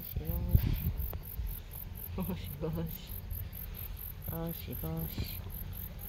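Insects chirping in a steady high-pitched pulse, about three chirps a second. A low bump about half a second in is the loudest moment.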